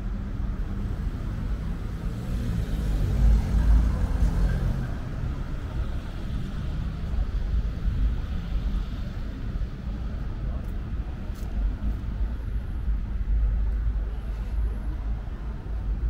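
City street ambience: a steady low rumble of road traffic, swelling briefly a few seconds in.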